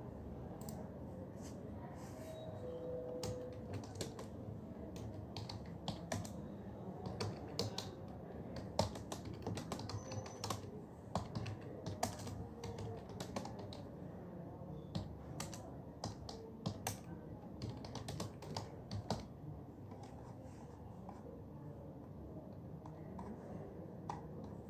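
Typing on an office computer keyboard: irregular clicks of keys, in quick runs with short pauses, thinning out toward the end, over a steady low hum of the room.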